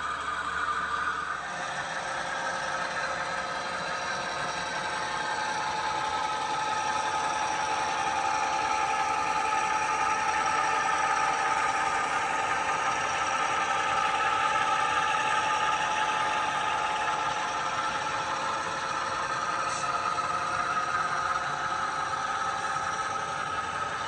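HO scale model freight train rolling past on the layout, with the model diesel locomotives' engine sound running steadily over the rattle of cars on the track. It grows louder toward the middle and eases off near the end as the train goes by.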